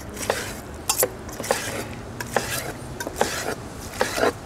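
Chef's knife slicing through a thick ribeye steak on a wooden cutting board, with the blade and a carving fork clicking and scraping against the board in a run of sharp, irregular taps, two or three a second.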